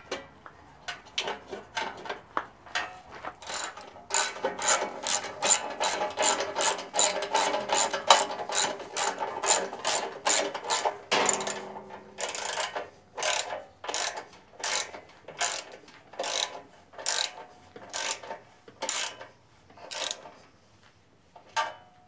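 Hand socket ratchet wrench clicking as it drives in a bolt: quick runs of clicks at first, then from about halfway through slower, evenly spaced clicks, stopping a couple of seconds before the end.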